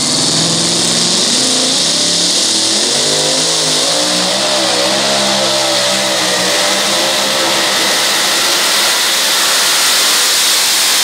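Supercharged engine of a two-wheel-drive pulling truck running flat out under load as it pulls the sled, with the tires spinning. It is loud and steady, and the pitch rises a little about four seconds in.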